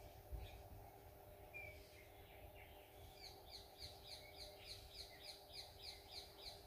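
Faint bird chirping: a few scattered calls, then from about three seconds in a rapid series of short high notes, about four a second. A steady hum runs underneath.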